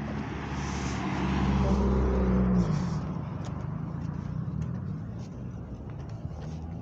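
A car driving past on the street: engine hum and tyre noise swell to their loudest about two seconds in, then fade away into steady traffic noise.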